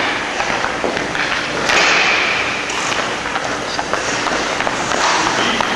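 Hockey skates scraping on rink ice, loudest about two seconds in, with scattered sharp clacks of sticks and pucks on the ice.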